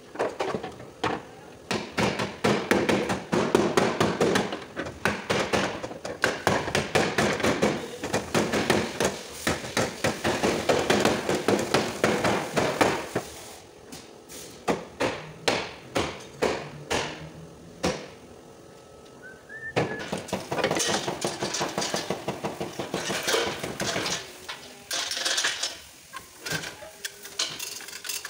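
Hammer blows on the damaged sheet-metal rear panel of a Lexus LS 460 L, knocking out the crushed bodywork. They come in fast runs of strikes, broken by slower single blows and short pauses.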